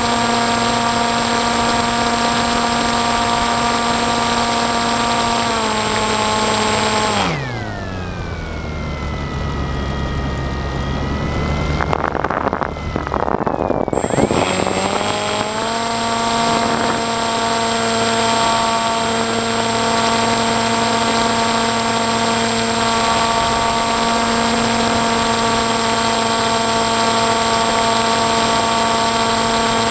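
Onboard sound of an FPV model aircraft's electric motor and propeller: a steady, pitched whine. About seven seconds in it is throttled back and the whine drops away, leaving a rushing noise that grows. Around fourteen seconds in the motor spools back up to a steady whine.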